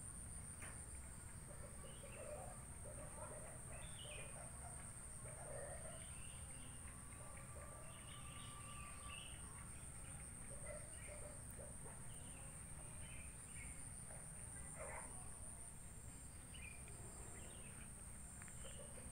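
Faint rural outdoor ambience: scattered short bird calls over a low steady rumble and a constant high thin whine.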